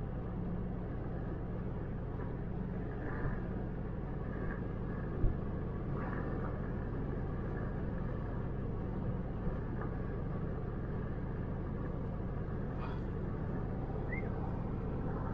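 Steady road and engine noise inside a moving car's cabin at highway speed, an even hum and rush with one brief thump about five seconds in.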